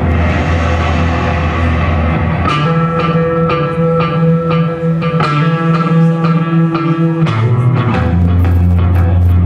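Electric bass guitar played solo as a live song intro. It holds deep low notes, moves into a passage of higher plucked notes about two and a half seconds in, and drops back to low notes near the end.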